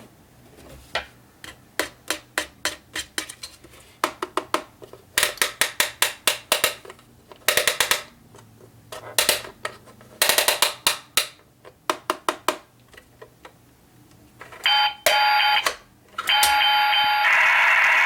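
Sharp plastic clicks and rapid clattering from toy kitchen appliances being handled and their parts snapped and opened. Near the end, a battery-powered toy appliance gives electronic beeping tones and then a steady loud buzzing as it runs.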